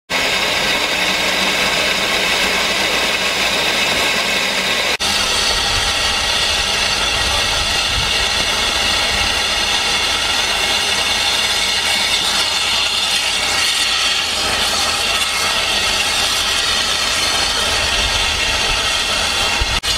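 Festiniog Railway steam locomotive Prince, built in 1863, standing with steam up and hissing steadily, with a low rumble underneath and a momentary break about five seconds in.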